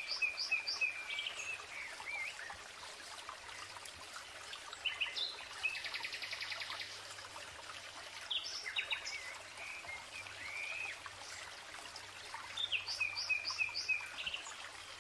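Small songbirds singing: recurring short phrases of quick high notes and short slurred glides, every few seconds, with a buzzy trill about six seconds in, over faint outdoor background noise.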